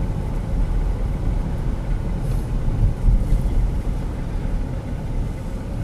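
Steady low rumble of road and engine noise from a Jeep Grand Cherokee 3.6 V6 being driven.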